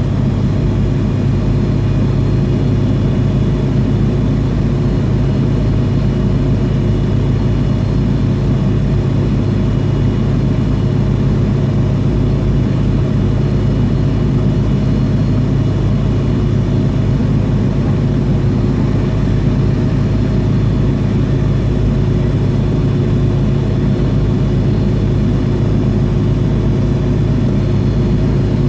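Jet engines of an MD-80 airliner heard from inside the cabin, running steadily with a deep hum and a few faint steady whines above it, before the takeoff roll.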